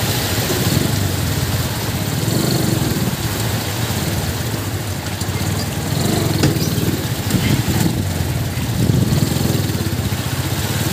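Small motorcycle engine of a tricycle running steadily while wading through street flood water, with water sloshing and splashing around the wheels.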